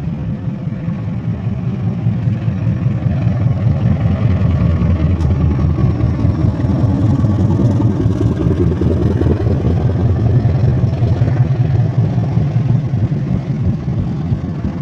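CC201 diesel-electric locomotive's engine running hard with a deep, steady rumble, growing louder over the first several seconds and then holding.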